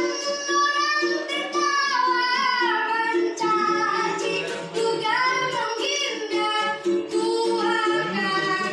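A child singing a melody over steady instrumental accompaniment.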